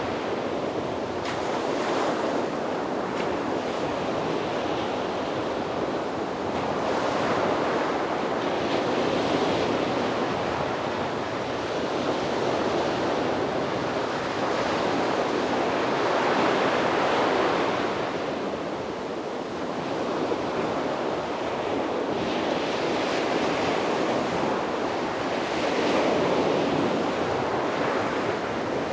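Sea waves breaking and washing up on a beach, a steady surf with a new swell every few seconds, and some wind on the microphone.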